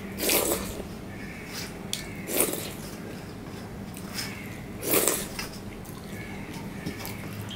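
A person eating by hand from a steel plate: wet, squishy mouthfuls and chewing, with fingers working moist rice and dal on the plate. Three louder wet bursts come about two seconds apart, with small clicks between.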